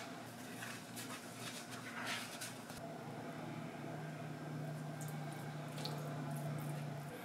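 Soft wet squishing and crackling as a marinated, butterflied rockfish is handled and pressed flat on paper towel, over a steady low hum. The hum grows stronger about three seconds in and cuts off abruptly just before the end.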